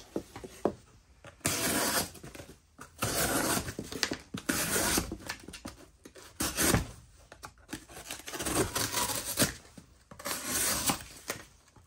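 Knife blade slicing through single-layer corrugated cardboard: a series of about five or six scraping, tearing cuts, each about a second long, with short pauses between.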